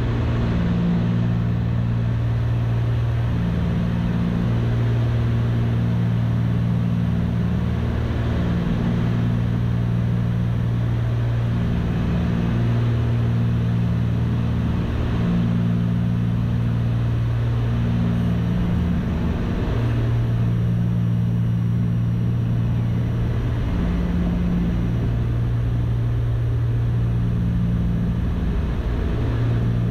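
Cessna 310's twin piston engines and propellers droning steadily at approach power, heard inside the cockpit, with a slow wavering beat that comes and goes every second or two.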